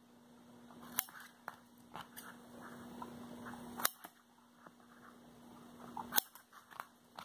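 Scissors snipping into the edges of a sheet of orange paper: three sharp snips about two to three seconds apart, with softer ticks of the blades between them, over a faint steady low hum.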